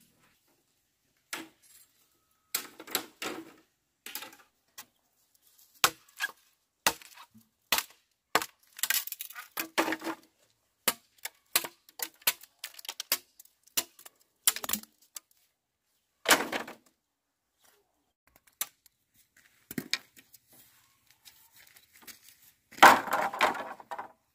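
Bamboo poles knocking and clattering: irregular sharp wooden knocks of a wooden club on a bamboo pole and of poles striking each other as they are handled, with a longer clatter near the end.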